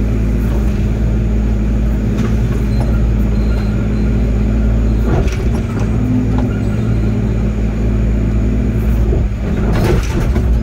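Diesel engine of a piece of earthmoving equipment running steadily under work, with a few knocks and clanks about two, five and ten seconds in.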